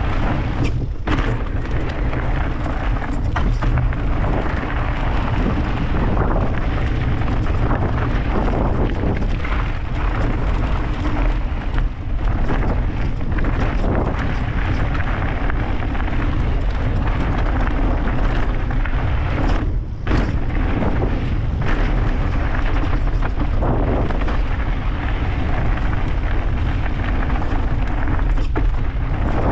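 Mountain bike riding a dirt trail: steady heavy wind rumble on the microphone, with the tyres on the ground and scattered knocks and rattles from the bike over rough spots.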